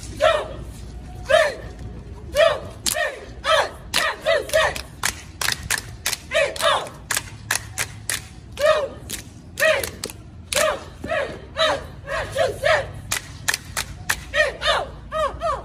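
A cheer squad shouting a cheer together in short, high-pitched calls, about one or two a second, punctuated by sharp claps and stomps.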